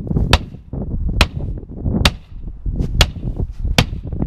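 A police baton striking a Ford Crown Victoria's window glass five times, about once a second, in sharp hard hits. The glass holds and does not shatter.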